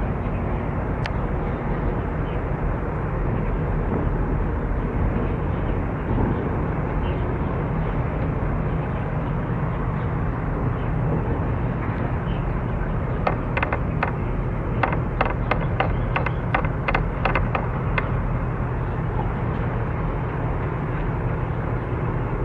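Steady low engine rumble from a harbour tug and a container ship passing close. About two-thirds of the way through comes a run of about a dozen sharp clicks over some five seconds.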